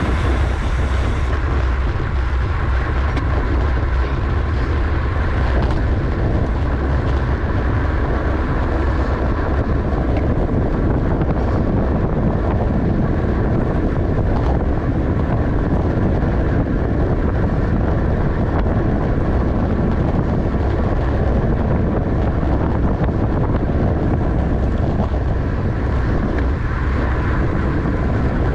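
Steady wind rush on the microphone of a camera on a racing bicycle at speed, with the continuous rumble of the bike running over the road.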